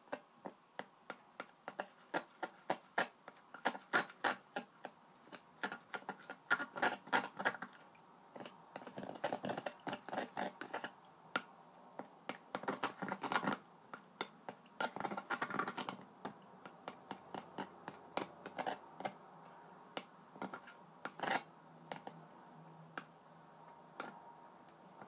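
A thin stick stirring nail polish and olive oil in a cup, clicking and scraping against the cup's sides. The clicks come about two or three a second at first and run together into denser scraping in the middle.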